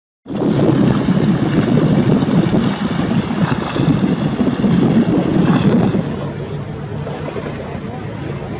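Wind buffeting the microphone, with sea waves washing against a stone breakwater. The sound cuts in abruptly just after the start and eases a little at about six seconds.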